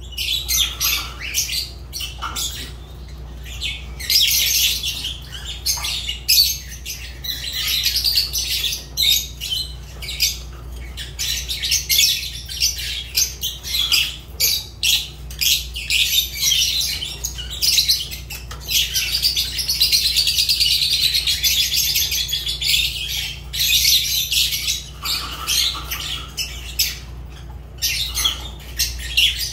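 Fischer's lovebirds calling: a rapid, continuous run of high-pitched shrill chirps and squawks, overlapping with hardly a pause.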